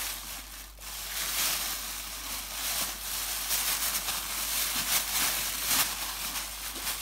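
Thin plastic bag crinkling and rustling in irregular crackles as small hands pull at its knotted handles.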